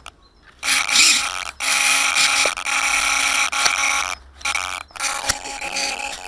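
Handling noise on the quadcopter's onboard camera as it is picked up from the grass and carried against clothing: loud rubbing and rustling that starts about half a second in, with a steady hum under it and a couple of short breaks.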